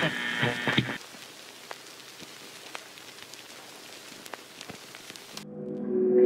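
A faint steady hiss with scattered crackles and clicks, like rain or record crackle. It follows a filtered, buzzy musical sound that cuts off about a second in, and near the end music with sustained low notes swells in.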